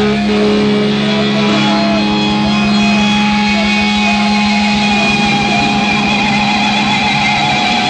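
Thrash metal band playing live with distorted guitars: a low chord rings on under higher held notes that waver in pitch.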